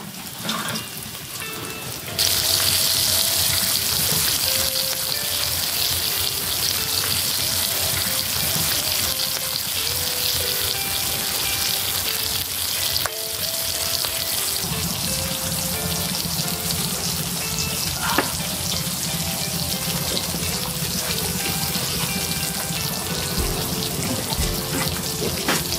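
Frozen pork belly sizzling on a hot grill pan, the hiss starting suddenly about two seconds in and then holding steady. Background music plays throughout.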